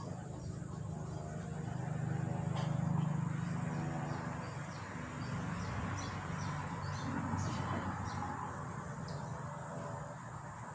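Outdoor ambience: small birds chirping in short calls again and again over a steady low hum that swells and fades.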